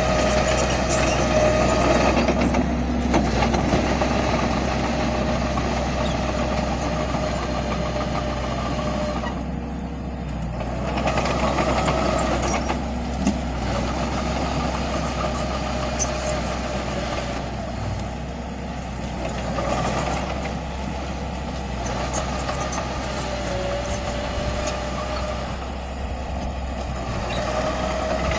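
Diesel earthmoving machinery at work: a steady low engine drone with a whine that dips and comes back, swelling louder now and then, with a few sharp clanks.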